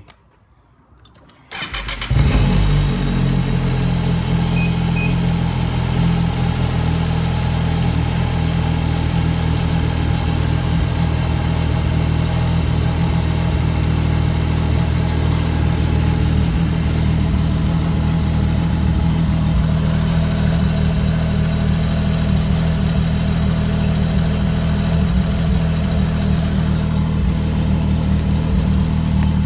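2016 Ski-Doo Renegade X 1200 4-TEC snowmobile's four-stroke three-cylinder engine, breathing through its stock muffler, starting up about two seconds in and then idling steadily.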